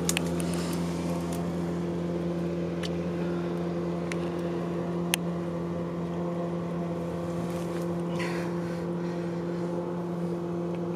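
Steady, unchanging drone of a motorboat engine running at constant speed. A few sharp clicks and a brief rustle about eight seconds in.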